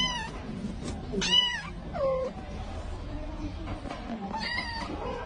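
Young kitten meowing: about four short, high meows with an arching pitch, the loudest about a second in, followed by a lower one that falls in pitch.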